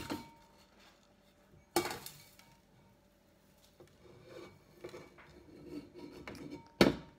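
Round metal pan clanking against a wooden table as it is handled: one sharp clank just under two seconds in and two more near the end, with lighter knocks between.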